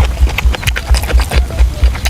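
Close-miked chewing of soft, fatty braised pork intestines: rhythmic wet smacking with soft low thumps about four times a second and many small sticky clicks.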